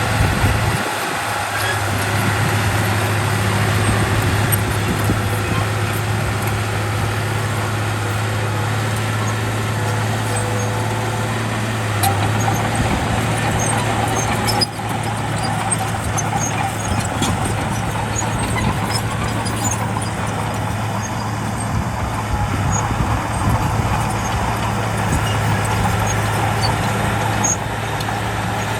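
Heavy earthmoving machinery, a bulldozer working with a dump truck, running steadily: a continuous low engine drone over dense machine noise, with a few sharp knocks.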